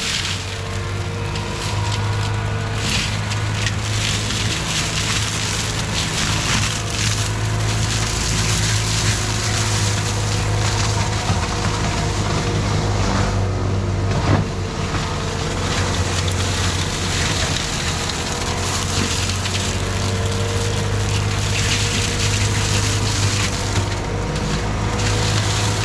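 A Gyrotrac 400 HL forestry mulcher head on a CAT 259D3 compact track loader is grinding through brush and small trees. The engine runs steadily under load while wood is shredded and splintered, with a sharp crack about fourteen seconds in.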